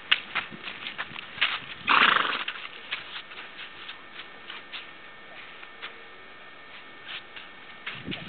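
Pony's freshly trimmed hooves clopping on a paved drive as it walks, with one loud breathy snort about two seconds in.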